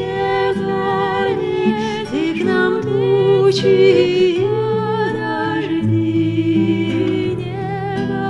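Voices singing a Bulgarian folk song as a round, the parts overlapping on different notes, over a low instrumental accompaniment.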